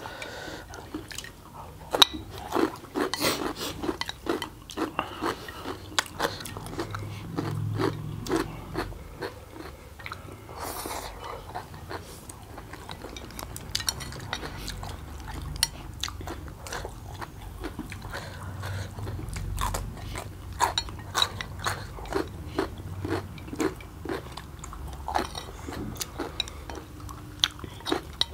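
Two people eating noodles close to the microphone: chewing and slurping, with frequent short clicks of chopsticks against plates throughout.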